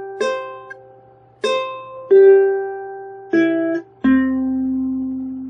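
Ukulele picking single notes of a C chord one string at a time as a broadcast-style chime: five plucks, stepping down in pitch, with the last and lowest note ringing out.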